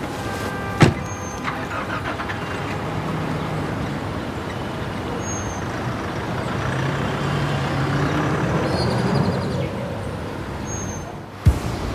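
A car door shuts with a sharp click about a second in, then a Nissan 4x4's engine runs as it drives slowly along a street, its hum rising and growing louder before fading near the end. A sudden low thump comes just before the end.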